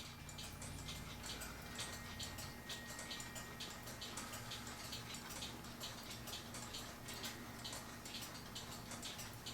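Faint, quick light clicks, several a second, over a low steady hum.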